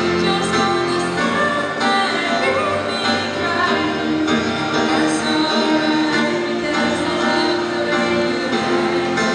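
A female vocalist singing a song into a microphone, accompanied by acoustic guitar and grand piano.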